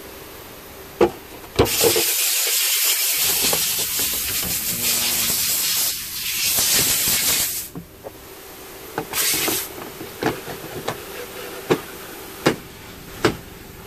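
Close handling noise as a car tail lamp is worked into place: a long, loud rustling and rubbing hiss, a shorter burst about nine seconds in, and a string of sharp plastic clicks and knocks near the end as the lamp is pressed home.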